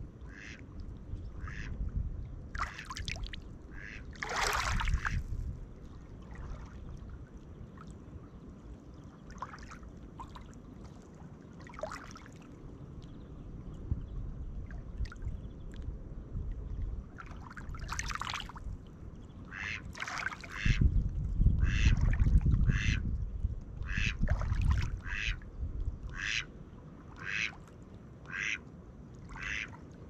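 A mallard quacking: scattered calls, then a long run of evenly spaced quacks in the second half. Beneath them, small waves lap on the pebble shore, with a louder surge about two-thirds of the way in.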